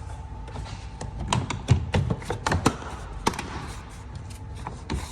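Plastic frunk trim cover of a Tesla Model Y/3 being pushed down onto its retaining clips: a series of sharp clicks and taps as the clips snap in, most of them between one and three and a half seconds in.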